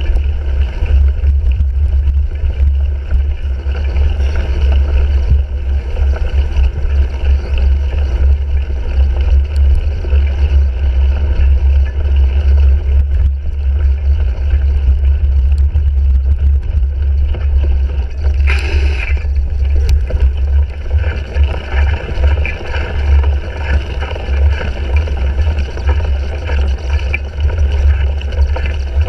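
Wind and riding vibration on a handlebar-mounted GoPro as a cyclocross bike is raced over rough, muddy ground: a loud, steady low rumble with a rough rustling haze above it, and one brief sharper noise about 18 seconds in.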